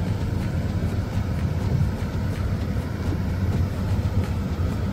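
Road noise inside a moving car's cabin: a steady low rumble of engine and tyres.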